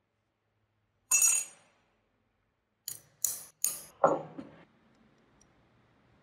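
A single ringing metallic clink about a second in, then four sharp hammer blows on a steel pin punch set in the rusty antique lock plate held in a vise, driving out the pins that hold the plates together; the blows come about a third of a second apart and the last is the heaviest.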